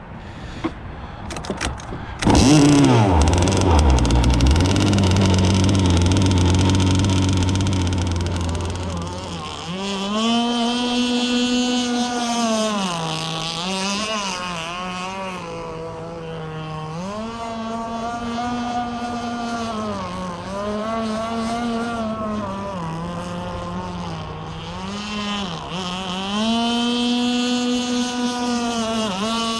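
Two-stroke Zenoah gas engine of an RC boat starts about two seconds in and idles steadily at close range. About ten seconds in it runs out on the water, its pitch rising and falling again and again as the throttle opens and closes.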